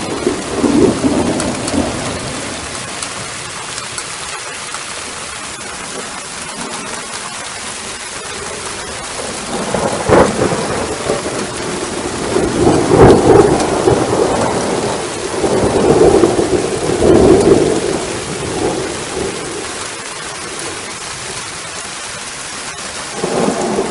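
Steady rain with thunder: a sharp crack about ten seconds in, followed by long rolling rumbles, with another rumble near the end.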